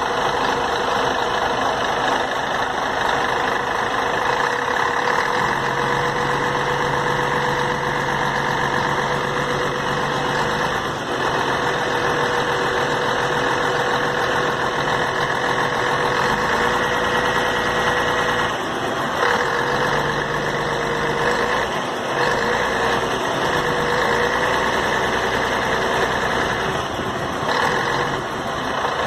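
Scania K113 coach's diesel engine idling steadily.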